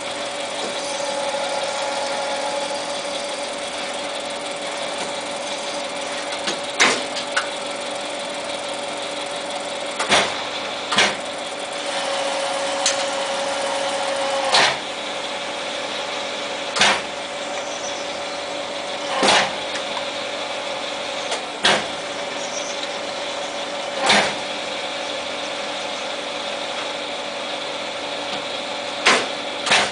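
Jet TL-25 turret lathe running with a steady hum, broken by sharp metallic knocks every few seconds as the turret is indexed and its levers worked.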